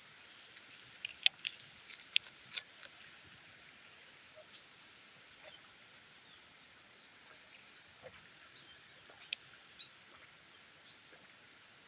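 Eating sounds of noodle soup: sharp mouth smacks and clicks, several in the first few seconds, then sparser, fainter, higher clicks.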